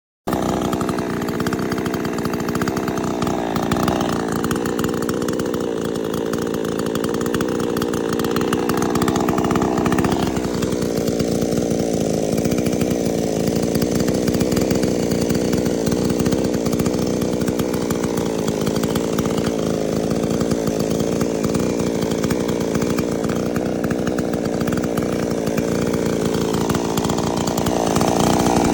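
PROYAMA 62cc two-stroke gas chainsaw running at high revs, its engine pitch dipping and recovering a few times.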